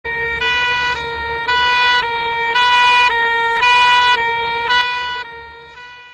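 Two-tone emergency vehicle siren alternating between two close pitches, changing about twice a second. It cuts in suddenly and fades away near the end.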